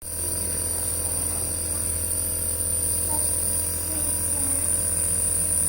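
Electric nebulizer compressor running with a steady hum and a thin high whine, misting medicine for a coughing child.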